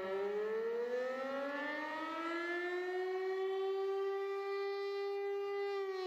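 Air-raid siren wailing. Its pitch rises slowly for about three seconds, holds steady, then begins to fall near the end.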